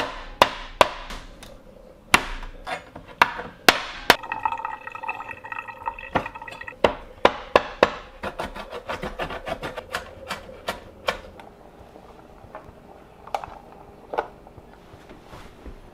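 Kitchen knife striking a bamboo cutting board: sharp, irregular chops as a rock crab is cut into pieces, then quicker, even chopping of seaweed at about three to four strokes a second. Near the end come only a few scattered knocks.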